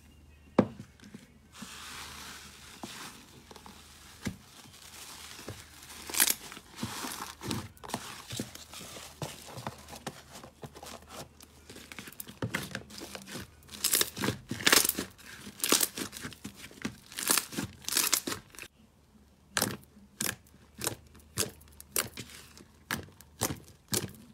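Slime pressed, squeezed and poked by hand: a run of sticky crackles and sharp pops as air trapped in the slime bursts, with a brief lull about two-thirds of the way through.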